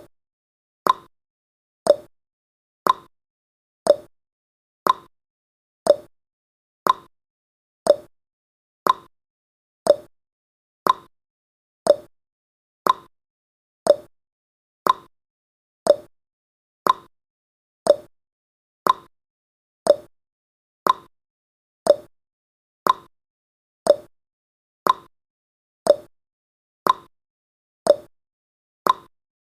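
Countdown timer's tick sound effect: one short, sharp click each second, at an even, steady pace.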